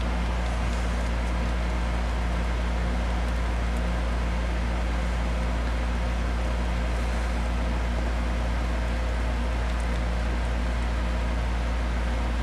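Steady low machine hum with an even hiss over it, unchanging throughout, like room equipment or electrical hum.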